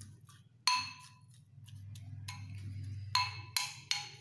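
Spoon clinking against the bowl while stirring sliced passion fruit peel in vinegar. There is one sharp clink with a short ring about half a second in, then a few quicker clinks near the end, over a steady low hum.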